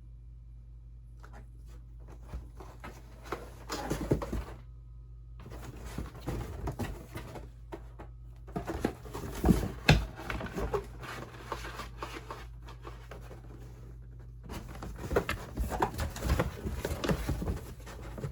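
A kitten scratching and rustling cardboard in three spells of scratchy crackling, the longest in the middle. A faint steady hum runs underneath.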